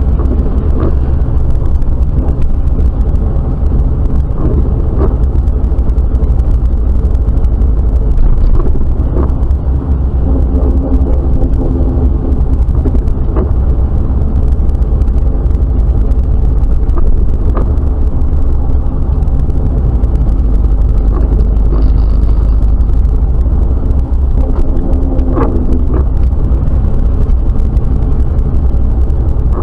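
Jeep Wrangler TJ driving at low speed on wet town streets, heard from inside the cabin: a steady, loud low engine and road rumble with a few light ticks.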